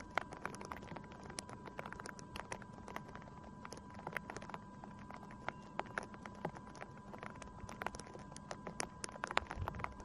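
Raindrops tapping irregularly, several a second, on the landed Parrot Disco drone's wing and camera housing, heard through its onboard camera, over a faint steady high tone.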